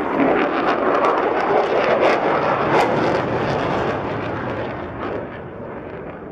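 F-35 Lightning II's single F135 afterburning turbofan: loud jet noise from a passing fighter, which fades steadily over the last couple of seconds as the jet flies away.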